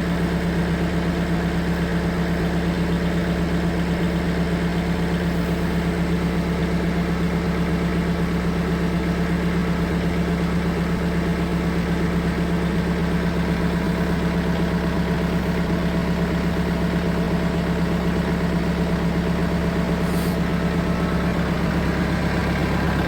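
Tractor engine running at a constant speed, a steady hum with no change in pitch.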